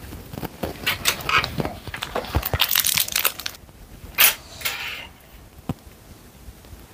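Thin plastic packaging crinkling and crackling as it is handled, a run of crackles for a few seconds with one sharp loud crackle about four seconds in, then a few faint clicks.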